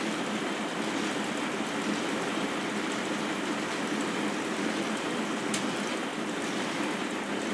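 K'nex robot arm running a program: its plastic gears and transmissions turning with a steady whirring clatter. One faint click comes about five and a half seconds in.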